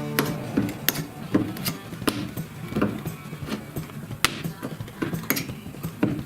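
Irregular sharp taps and knocks of hand tools on car-body sheet metal, about two a second, under background music.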